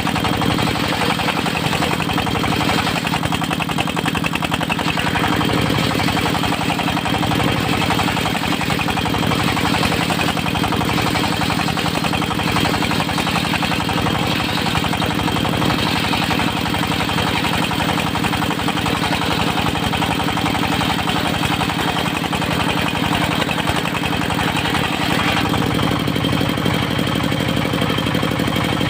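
Diesel engine of a circular sawmill running steadily, with a rapid even beat and a slight change in tone near the end.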